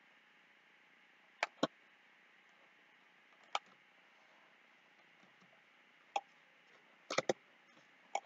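Scattered sharp clicks from a computer mouse and keyboard, about eight in all, some in quick pairs, over a faint steady hiss.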